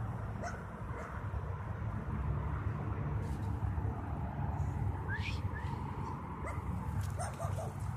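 A dog barking and yipping a few times, faint, around the middle and near the end, under a steady low rumble of wind on the phone's microphone.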